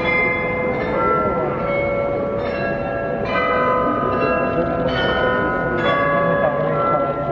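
The tuned bells of the Munich Rathaus-Glockenspiel playing a slow tune. One note is struck about every 0.8 seconds, and each is left ringing into the next.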